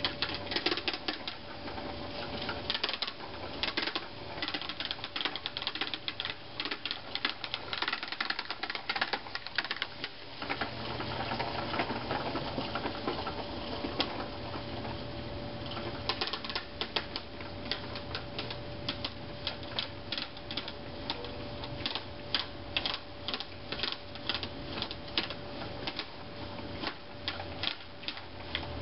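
Push broadcast spreader clicking and rattling rapidly as its wheels and gear-driven spinner turn while it is pushed across bare soil sowing grass seed. The clicking thins out for a few seconds in the middle and then picks up again, over a faint steady hum.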